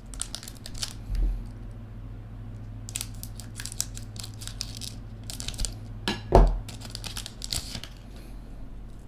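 Foil trading-card pack wrapper crinkling and tearing as it is opened and handled, in bursts of crackly rustling, with two dull thumps about a second in and about six seconds in, the second the loudest.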